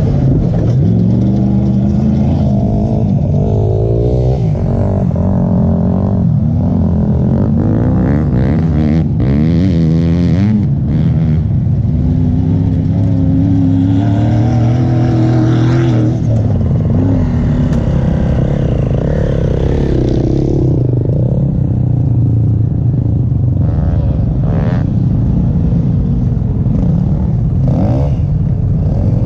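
Polaris Sportsman XP 1000 ATV's twin-cylinder engine running hard while riding, its pitch rising and falling repeatedly as the throttle is opened and eased.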